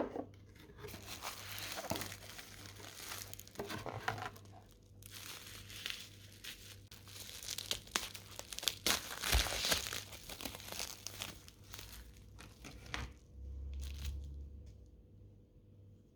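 Crinkling and tearing, handled by hand, in uneven rustling bursts over about twelve seconds with a short pause near the middle, and one dull thump about nine seconds in.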